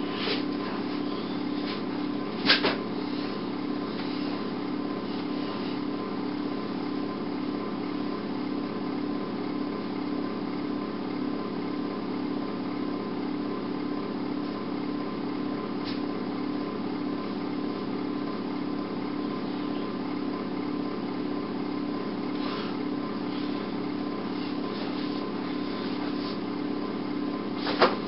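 Steady low electrical hum with a faint thin tone above it, broken by a sharp click about two and a half seconds in and another near the end.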